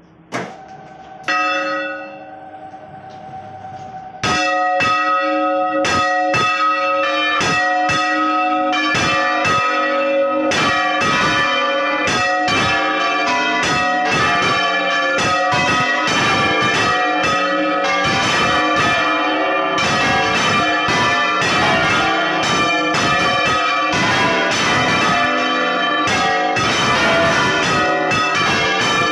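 Several church bells in a bell tower rung by hand from ropes: a few single strokes at first, then from about four seconds in a fast, continuous peal of many bells struck together that keeps going.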